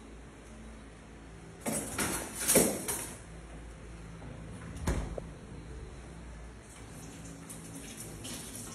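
Kitchen refrigerator in use: a burst of rustling and clatter while something is taken out, then a single thump about five seconds in as the fridge door is shut. Near the end comes a soft hiss of water at the kitchen sink.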